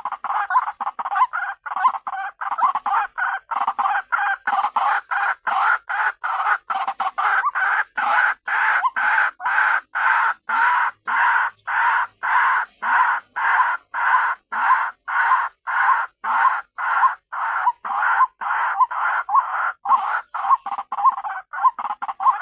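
White-breasted waterhen (ruak-ruak) calling, a harsh note repeated about two and a half times a second in an unbroken series; a lure call of the kind used to draw waterhens in.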